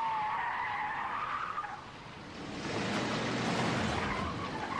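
A pickup truck's tyres squealing in a wavering screech. About halfway through this gives way to a rough skidding rush with engine noise underneath.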